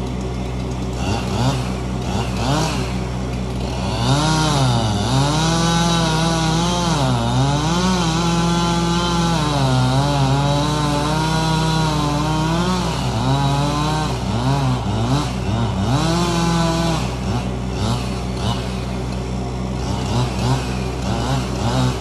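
Two-stroke chainsaw throttled up about four seconds in and held at high revs for some twelve seconds, its pitch repeatedly sagging and climbing as it cuts wood, then easing off. A steady engine idle hums underneath.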